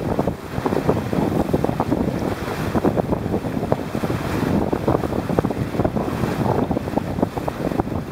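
Hobie catamaran hull cutting through choppy lake water at speed: a steady rush of water with many small splashes of spray, mixed with wind buffeting the microphone.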